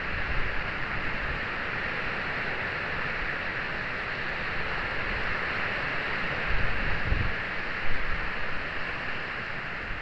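Steady hiss of background noise, with a few low bumps or handling knocks about seven to eight seconds in.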